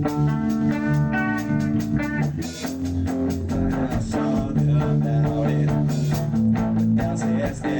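Instrumental rock passage with no vocals: guitar playing held, chord-like notes over bass guitar and a steady drum kit beat.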